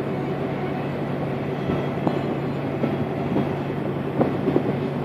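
Steady engine hum with rushing noise and scattered light knocks and rattles, heard from inside a moving vehicle.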